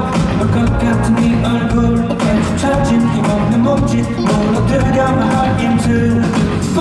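Pop music with a steady drum beat, playing the opening of a song before the lead vocal comes in.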